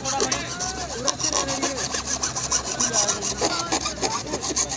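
Plastic rubbing and scraping as a white PVC fitting is pushed and twisted onto the greased end of a slotted black plastic drainage pipe, with rapid rough strokes throughout.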